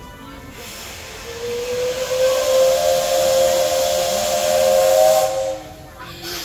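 Steam whistle of the 8620-class steam locomotive No. 8630 blowing one long blast for departure. A rush of steam starts about half a second in and becomes a whistle tone that rises a little in pitch. The tone is held for about four seconds, then cuts off.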